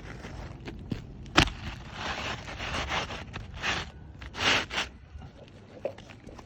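Repeated scraping and rustling on asphalt roof shingles during a shingle repair attempt, with one sharp knock about a second and a half in.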